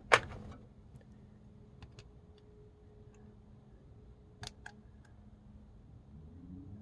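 Metal hand tools clinking against engine parts: one sharp metallic clank with a short ring just after the start, then a few scattered light clicks and a quick pair of taps near the middle.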